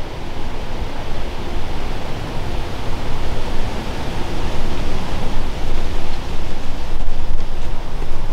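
Wind buffeting the microphone: a loud, steady rumbling hiss, heaviest in the low end.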